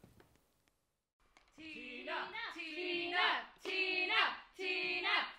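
A woman singing softly and unaccompanied in short phrases that slide up and down in pitch, starting after about a second and a half of near silence.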